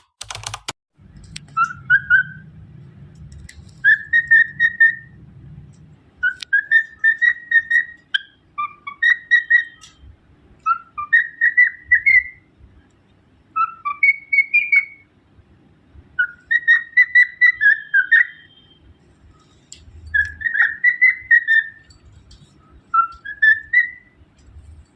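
Cockatiel whistling short phrases of a few notes each, mostly rising in pitch, repeated over and over with brief pauses between.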